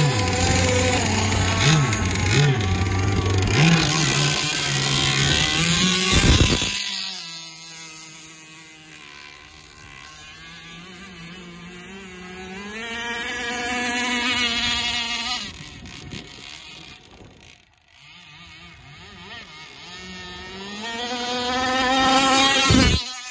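Two-stroke gasoline engine of a radio-controlled speedboat, loud and close for the first six seconds or so, then suddenly farther off. Out on the water its pitch rises and falls as it runs. It swells twice as the boat comes nearer, and stops abruptly near the end.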